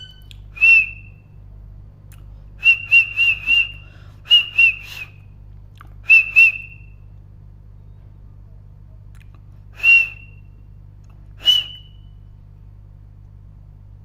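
Parrot calling in short, sharp chirps, singly and in quick runs of two to four, with pauses of a few seconds between. A steady low hum runs underneath.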